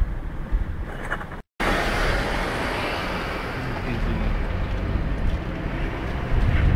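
Car driving slowly, heard from inside the cabin: steady engine and road noise. The sound cuts out for a moment about a second and a half in, then resumes a little louder.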